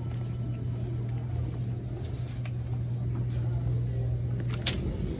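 A steady low hum that stops suddenly about four and a half seconds in, together with a sharp click.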